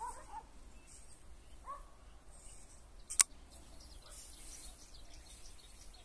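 Folding knife flipped open by its flipper tab: one sharp metallic snap about three seconds in as the blade swings out and locks. Faint bird chirps are heard before it.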